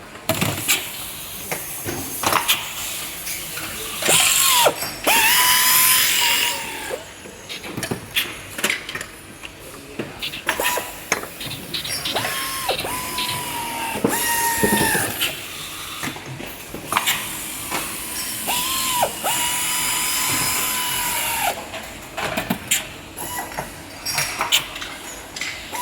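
Power screwdriver or nut runner tightening door closer body caps: about half a dozen short whines that spin up, hold for a second or two and wind down, among sharp clicks of metal parts and bursts of air hiss.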